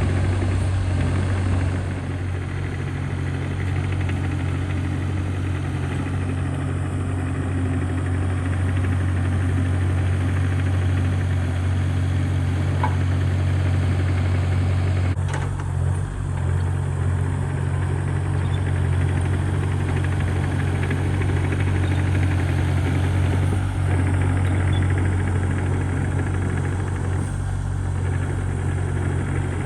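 An engine running steadily at a constant idle, with a strong low hum that does not change.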